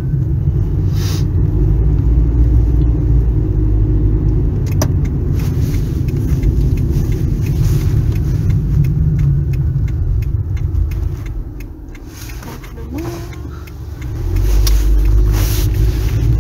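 Car driving, heard from inside the cabin: a steady low rumble of engine and tyre noise. The rumble falls away about twelve seconds in as the car slows at an intersection, then rises again as it pulls off.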